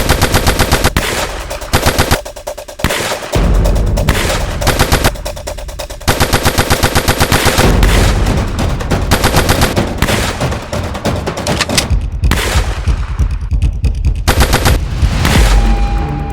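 Automatic gunfire in a film gun battle: long bursts of rapid shots, many a second, broken by short pauses and overlapping volleys.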